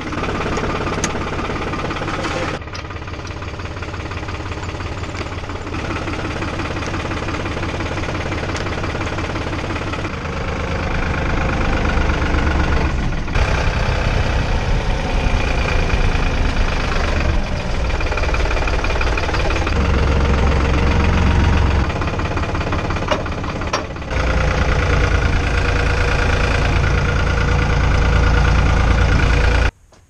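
New Holland TN70DA diesel tractor engine running with a steady, even rhythm, heard partly from inside the cab. The sound shifts abruptly several times across edits and cuts off just before the end.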